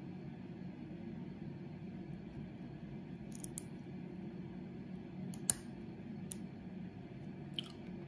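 Small sharp metallic clicks as a hook pick works the pin tumblers of an Ace padlock under tension, about half a dozen spread over the second half, the loudest about five and a half seconds in, over a steady low hum.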